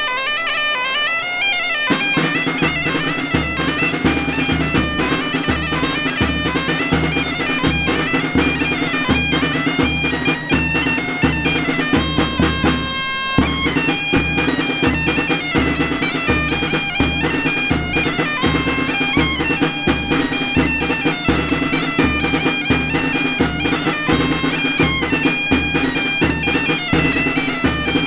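Traditional folk music: a wind instrument plays a melody over a steady held drone, and a drum joins about two seconds in, beating evenly about twice a second. The music breaks off briefly a little before halfway, then carries on.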